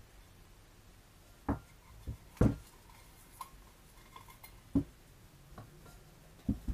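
Camping cookware pots being lifted apart and set down: about seven light knocks and clinks of metal pot against pot and surface, some with a short metallic ring, the loudest about two and a half seconds in.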